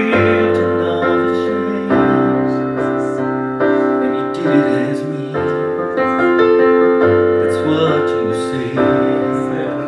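Piano-style keyboard playing slow, sustained chords that change about every two seconds, accompanying a gospel song between sung lines.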